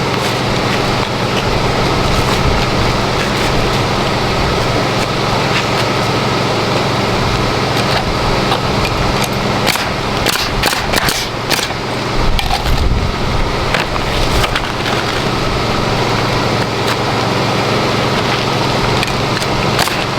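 Shingle roofing work: rough scraping and handling of asphalt shingles, with a run of sharp knocks a little past halfway, over a steady low hum.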